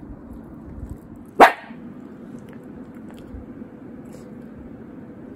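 A small papillon-type dog barks once, a single short sharp bark about a second and a half in.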